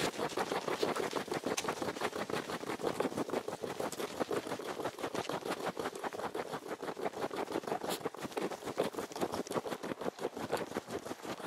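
Footsteps crunching through snow, a steady, dense crackling crunch.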